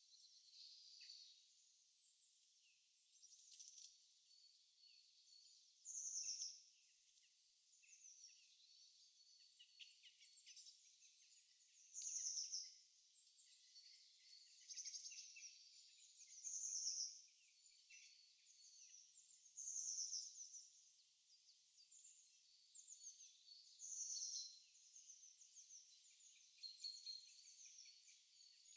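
Faint wild songbirds singing and chirping, a recording of winter birds in the morning: a short, bright, high phrase stands out every three to six seconds over softer continuous twittering.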